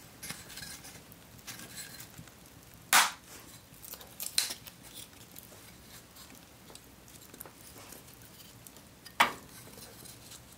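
Wood fire burning in a wood stove: faint crackling with three sharp, loud pops, about three seconds in, just over four seconds in, and near the end.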